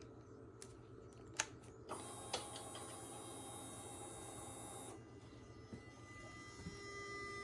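Suzuki V-Strom 800DE motorcycle: a few sharp clicks, then a mechanical whir for about three seconds that cuts off suddenly, and in the last couple of seconds a faint steady high-pitched tone sets in.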